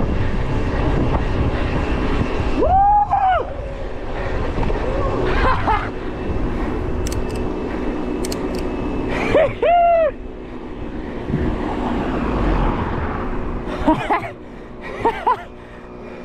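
Wind rushing over the microphone of a mountain bike ridden fast down a street, easing off after about ten seconds. Short shouted calls break in about three seconds in, around ten seconds, and again near fifteen seconds.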